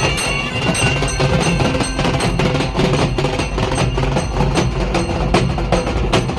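A group of halgi frame drums, beaten with sticks in a fast, dense, driving rhythm.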